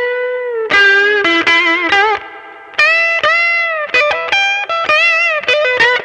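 Electric guitar through a Tube Screamer overdrive and reverb, its Strat single-coil pickup fitted with a humbucker's alnico bar magnet: a riff of sustained single notes with bends, with a short pause about two seconds in.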